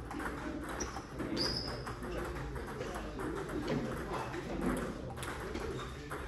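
Table tennis hall ambience: a steady murmur of indistinct voices, with scattered sharp clicks of the celluloid ball being struck. About a second in come two short, high squeaks.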